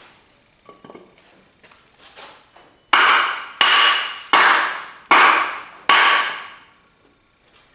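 A hammer striking steel: a few light taps, then five hard blows about two-thirds of a second apart, each ringing out metallically and dying away. It is an attempt to shock loose a stuck nut on the crankshaft of a seized Chevy 350 small-block engine.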